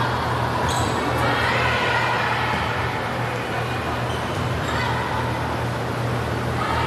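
Gymnasium ambience at a volleyball match: a murmur of spectators' voices over a steady low hum, with no single sound standing out.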